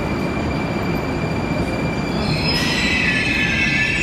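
Moscow Metro train rumbling through the station, with a steady high whine at first. About halfway through, a shrill squeal of steel wheels on the rails sets in, several high tones at once.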